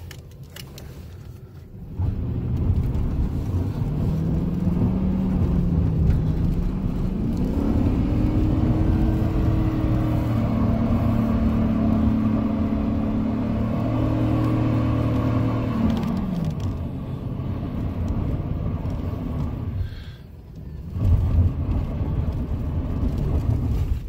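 GMC pickup's 4.8-litre V8 revving hard from inside the cab in a burnout attempt, the rear tyres spinning for a little smoke. The engine note climbs, holds high at around 4,500 rpm for several seconds, then drops back.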